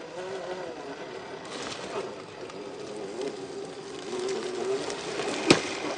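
Axial SCX10 II RC crawler's electric motor and geartrain whining at low speed as the truck crawls over a log, the whine wavering and growing a little louder toward the end. A single sharp knock comes about five and a half seconds in.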